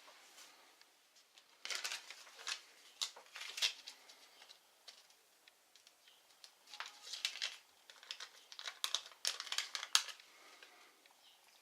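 Handling noise from working on a laptop: two spells of quick small clicks and crinkly rustling, about two seconds in and again from about seven to ten seconds in.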